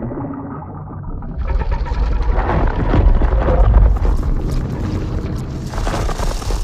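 Titanus Ghidorah film sound effect: a deep rumble that swells about a second and a half in into a loud, harsh, noisy blast, with music mixed in.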